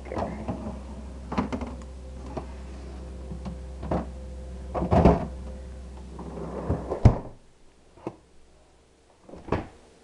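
Freezer drawer of a GE PFE29PSDSS French-door refrigerator being handled: the plastic basket knocks and clacks as it is slid and moved, then the drawer is pushed shut with a loud thump about seven seconds in. A steady low hum stops at the moment it shuts, and a couple of lighter knocks follow near the end.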